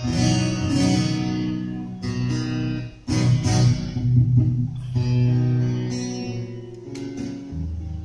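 Acoustic guitar strummed, with new chords struck every second or two and left to ring.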